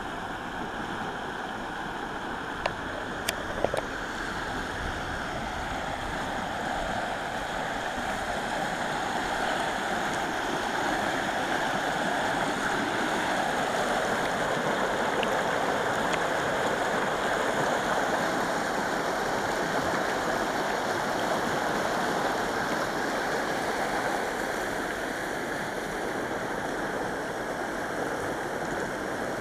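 Fast river water rushing steadily over shallow rapids in the outflow channel below a hydroelectric power plant, a little louder through the middle. A few sharp clicks about three seconds in.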